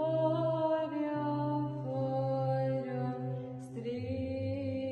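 A woman's solo voice chanting a Byzantine melody over a steady low held drone (the ison). The melody moves slowly between held notes, and the drone steps down to a lower note about four seconds in.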